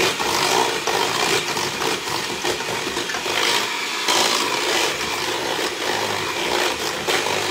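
Electric hand mixer running steadily, its beaters working an egg into thick pumpkin bread batter in a stainless steel bowl.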